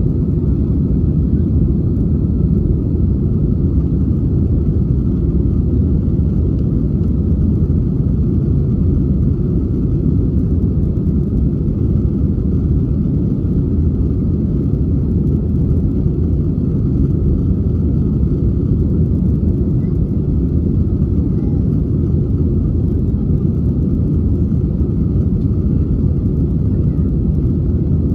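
Airbus A320 cabin noise: a loud, steady low rumble of the jet engines and airflow that holds even throughout.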